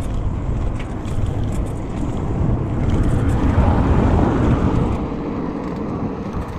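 A taxi passing close by, its noise swelling about three seconds in and fading again, over a steady low rumble of wind on the microphone.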